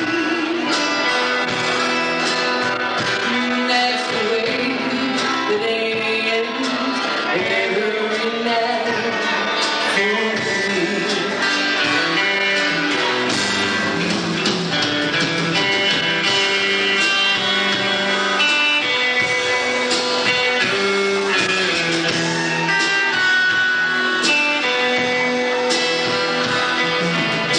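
A country band playing: a voice singing over guitar, with the music running on without a break.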